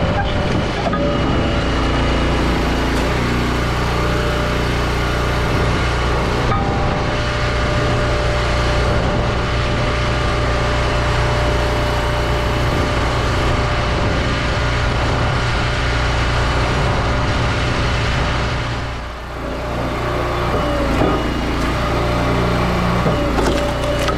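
Engine of a firewood log splitter running steadily, with a brief drop in level about nineteen seconds in.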